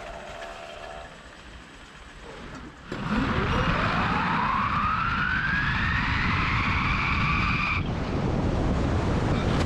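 Skis running down a ski jump's in-run track, picking up speed. A rushing noise comes in about three seconds in, with a whine that climbs steadily in pitch for about five seconds. The whine cuts off suddenly as the jumper leaves the take-off, and wind rush carries on.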